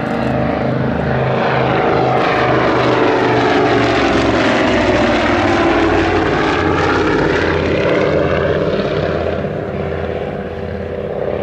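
Avro Anson C19's twin Armstrong Siddeley Cheetah radial engines and propellers flying past, loudest around the middle, the engine note dropping in pitch as the aircraft passes and then fading a little near the end.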